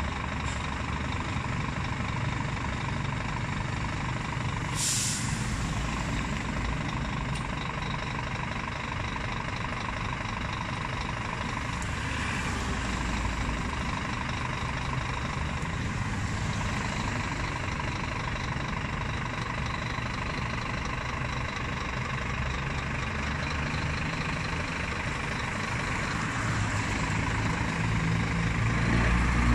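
Scania G440 tractor unit's 13-litre six-cylinder diesel idling steadily, with one brief sharp hiss of air from the brakes about five seconds in. Near the end the engine grows louder as the truck pulls forward.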